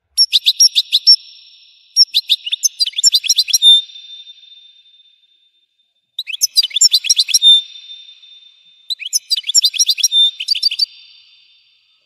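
European goldfinch singing: four loud bursts of rapid twittering and trilled notes, each one to two seconds long, with short pauses between them.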